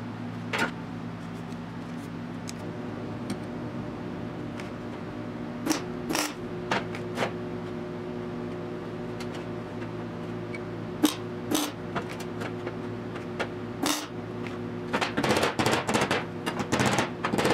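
Small piece of sheet steel being worked by hand: a few separate sharp metallic clicks and taps, then, near the end, a quick run of light hammer blows on the steel piece lying on a steel cart top. A steady low shop hum sits under it all.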